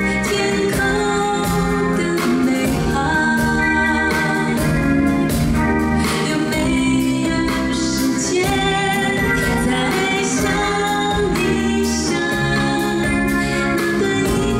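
A woman singing a pop song live into a handheld microphone, backed by a band with guitar.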